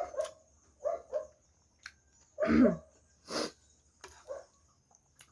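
Mouth and throat sounds of a person eating: several short murmured hums, a louder sliding hum about two and a half seconds in, and a short sharp breath just after it.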